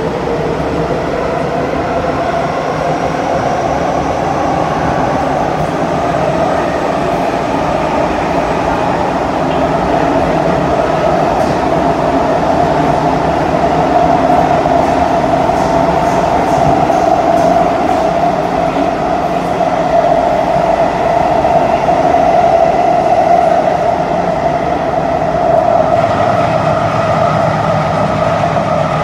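Cabin noise of an SMRT C151C metro train running at speed through the underground tunnel: a steady rumble of wheels on rail with a whine from the traction motors. The whine rises in pitch over the first couple of seconds and then holds steady, and the sound shifts slightly near the end.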